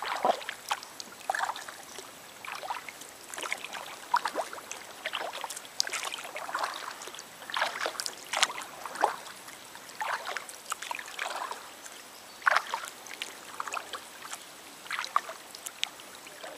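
Double-bladed kayak paddle dipping into the river in alternating strokes, each stroke a short splash with drips, about one to two a second.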